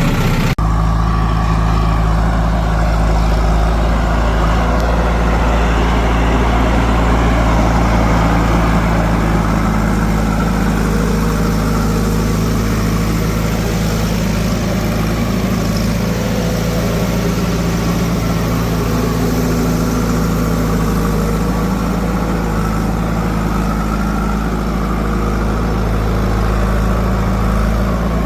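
Heavy diesel engine running steadily at an even speed, with a low, constant hum and no revving. A brief dropout about half a second in.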